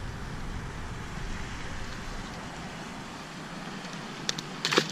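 Steady low background rumble, then near the end a few quick splashes as a small bass is dropped back into the pond.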